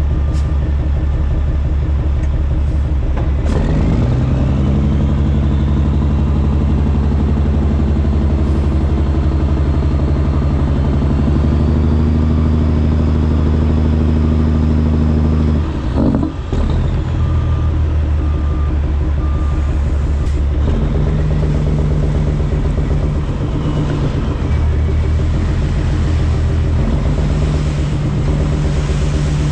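A Kenworth W900's CAT C13 inline-six diesel running under load in the cab, its note stepping to a new pitch about 4 s in and again after a brief dip about 16 s in, as the engine speed changes. A faint rising whistle sounds over the engine after the first change, and a short repeated beep is heard twice.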